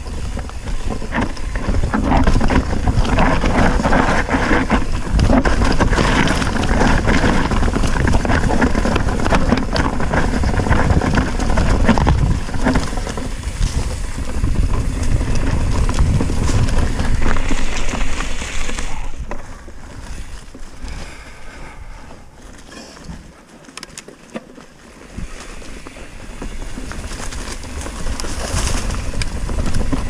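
Mountain bike descending a rocky trail: tyres rattling and crunching over loose rock, with the bike clattering over the bumps. The clatter eases for several seconds about two-thirds of the way through, then builds again.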